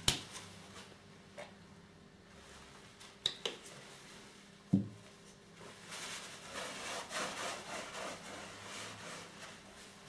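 Close handling sounds: a few light clicks and a soft thud near the middle, then from about six seconds a cloth rubbing a sauce stain into carpet pile for a few seconds.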